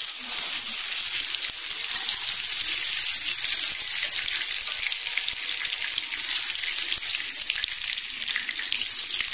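Paneer cubes shallow-frying in hot oil in a kadai: a steady sizzling hiss with fine crackles, with a ladle stirring and lifting the cubes out.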